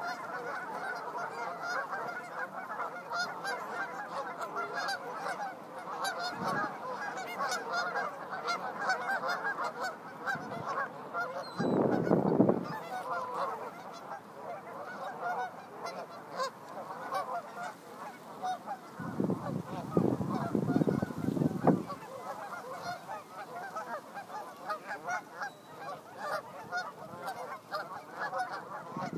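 A large flock of Canada geese honking continuously, many calls overlapping. Two louder stretches of low rumble stand out, one about twelve seconds in and one around twenty to twenty-two seconds in.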